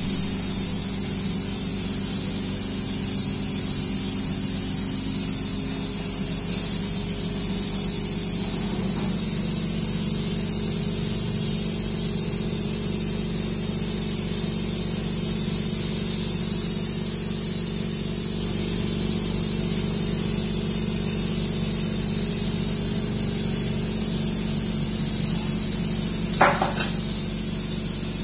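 SMORT-ES electrostatic disinfection sprayer running steadily: a motor hum under a constant hiss of mist from the spray gun. A brief knock sounds near the end.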